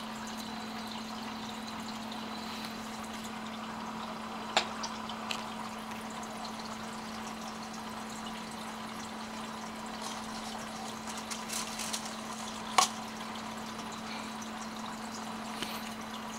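Aquarium filter running with a steady hum and trickling water. Two sharp splashes, about four and a half seconds in and again about thirteen seconds in, with a few smaller splashes shortly before the second, as feeding fish strike at the water's surface.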